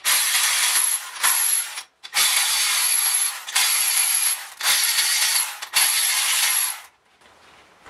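Milwaukee M12 cordless electric ratchet running in six bursts of about a second each with short pauses, backing out engine main bearing cap bolts; it stops about seven seconds in.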